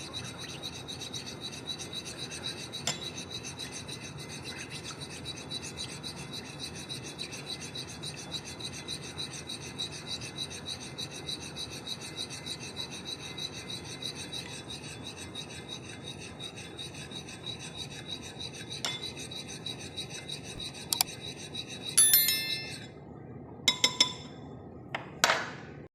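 Steady, rapid scraping and rubbing with a quick rhythmic pulse and a faint high whine. Near the end it gives way to a few sharp clicks and short high-pitched tones.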